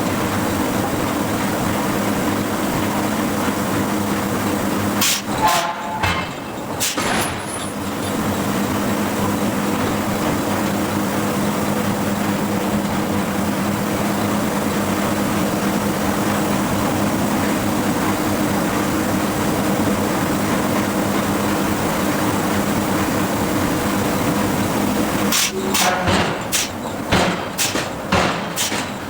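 Forge shop with the steady hum of hydraulic hammer machinery. A few sharp impacts come about five seconds in, and a quick run of hammer blows on the steel starts near the end.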